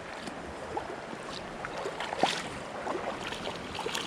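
Creek water running, with small scattered splashes and ticks as a hooked trout is brought in.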